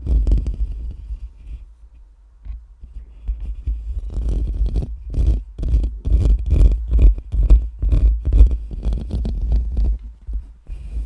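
Scratching and brushing directly on a microphone: a quick run of rubbing strokes heard as deep, muffled rumbles. The strokes ease off briefly about two seconds in, then come fast and steady.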